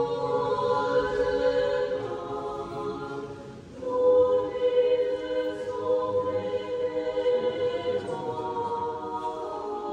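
Orthodox church choir singing liturgical chant a cappella in long held chords. The phrase dies away about three and a half seconds in, and a new, louder phrase begins just after.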